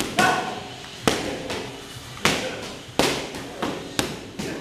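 Boxing gloves striking focus mitts: about eight sharp smacks in irregular combinations, each dying away quickly.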